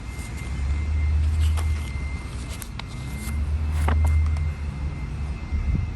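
A low rumble that swells twice, with scattered light clicks and rustles of handling.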